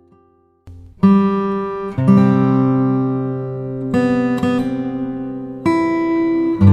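Background music: acoustic guitar chords strummed about once every one to two seconds, each left to ring and fade, after a brief pause near the start.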